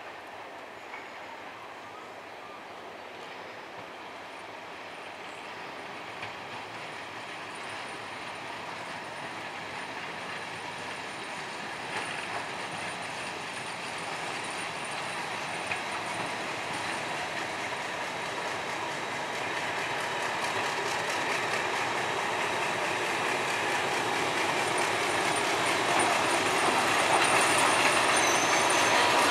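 Two Class 50 diesel locomotives, with their English Electric sixteen-cylinder engines, approaching at the head of a passenger train. They grow steadily louder as they come closer.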